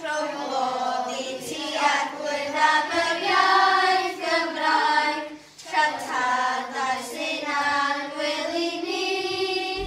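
A children's choir singing in Welsh, unaccompanied, with a short breath break about halfway through.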